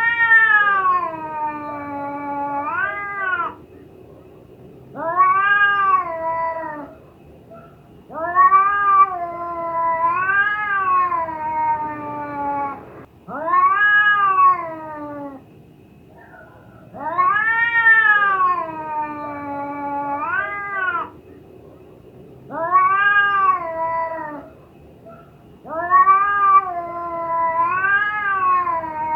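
A cat in heat yowling: about seven long, drawn-out calls that rise and fall in pitch, each one to four seconds long with short pauses between.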